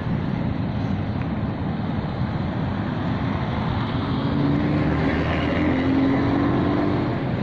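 Steady street traffic rumble with wind on the microphone, and a vehicle engine hum coming up in the second half.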